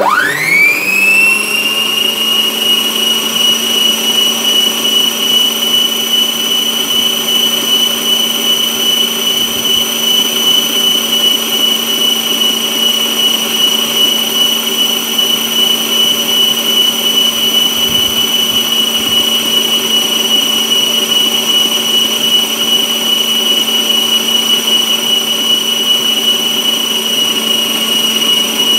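Electric food processor fitted with its dough blade, running steadily as it mixes flour into cookie dough. It spins up quickly to a very loud, high-pitched whine and holds that speed.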